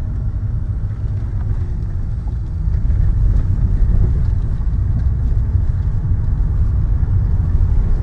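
Steady low road and engine rumble inside a moving car's cabin, getting a little louder about three seconds in.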